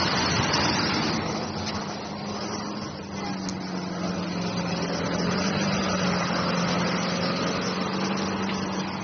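Road traffic noise with vehicle engines running and a steady low engine hum.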